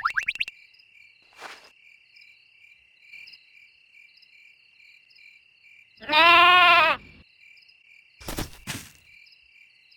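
Cartoon sheep bleating once, a loud wavering call about six seconds in, over a steady high chirping of crickets. Two sharp knocks follow near the end, and a quick rising whistle-like sound effect ends just as it begins.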